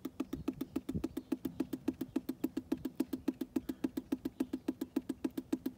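Maple sap dripping from a tap into a plastic bucket: a fast, even run of drops, about eight a second. The drip rate is the sign of a very strong sap run.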